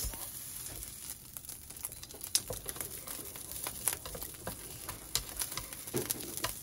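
A parcel being handled and unwrapped: irregular crinkling and rustling of packaging, with many small sharp clicks.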